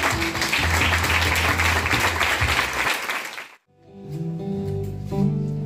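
An audience applauding over a few lingering guitar notes; the sound cuts off abruptly a little past halfway, and acoustic guitars then start playing picked notes.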